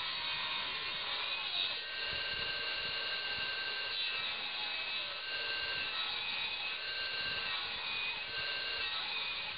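Belt-driven circular saw blade cutting a small branch into short pieces, a steady rasping whine with ringing tones that come and go as each cut is made. The blade is dull.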